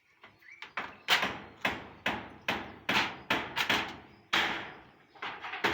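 Repeated hammer blows, about two to three a second, faint at first and loud from about a second in, with short gaps in the rhythm.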